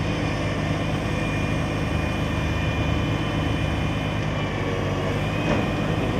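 Large engine running steadily at an even low pitch, with a faint high whine on top.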